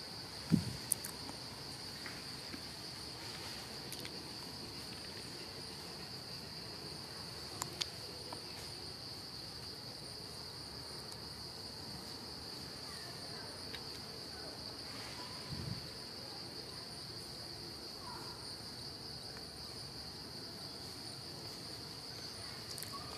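Steady, high-pitched insect drone, one unbroken tone, with a soft thump about half a second in and another faint thump midway.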